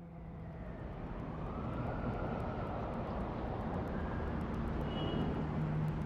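Steady rushing noise with a low hum underneath, slowly growing louder over several seconds.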